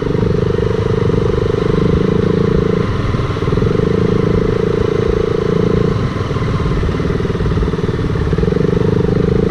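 Honda CBR motorcycle engine running at low speed on a rough dirt trail. The throttle eases off and comes back on about three seconds and again about six seconds in.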